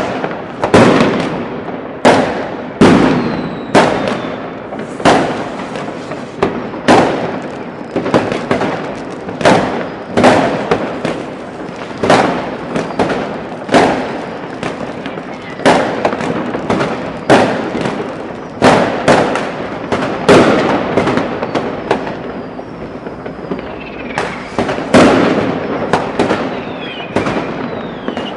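Fireworks and firecrackers going off continuously: a sharp bang about every second, with crackling between. Faint whistles of rockets are heard near the end.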